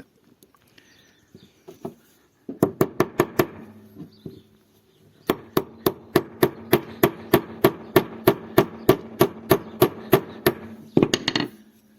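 Hammer tapping a new steel roll pin into its hole on a brushcutter's blade mount, a tight fit as the pin squeezes up. There is a short quick run of blows, a pause, then a long steady run of about four to five metallic taps a second with a ringing tone under them, and a few last taps near the end.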